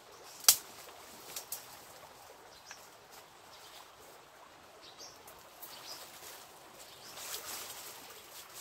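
Rustling of dry brush and leaf litter as someone moves through undergrowth, with a sharp twig snap about half a second in and a few smaller cracks after it. Faint bird chirps come and go, and the rustling grows louder near the end.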